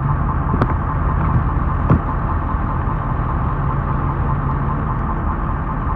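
A motor vehicle running steadily with a low rumble, with two brief clicks in the first two seconds.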